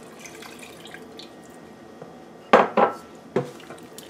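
Water poured into a stainless steel pot of tomato stew, then a spoon knocking against the pot a few times as the stew is stirred, the loudest knocks about two and a half seconds in with a short metallic ring.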